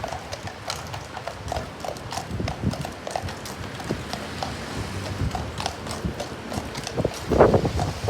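Horse's hooves clip-clopping as it walks, in an uneven run of knocks, with a louder knock near the end.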